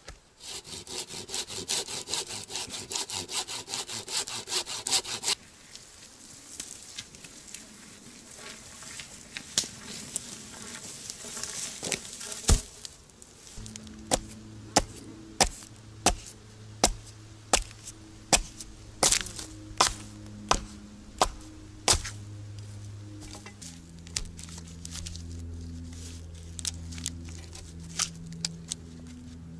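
Hand saw cutting through a pine log with quick back-and-forth strokes that stop about five seconds in, followed by scattered wood knocks. Later comes a steady run of sharp axe blows on wood, about one and a half a second, over low sustained background music.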